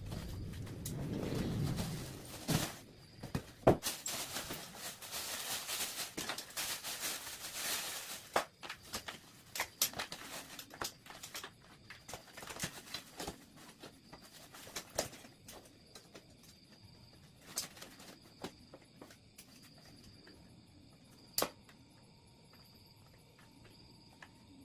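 Packaging being handled and unwrapped: rustling for a few seconds, with scattered clicks and knocks that thin out and grow fainter toward the end.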